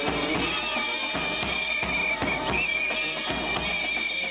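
Festive music with a steady drum beat, about two strikes a second, under a high, held note that bends slightly now and then.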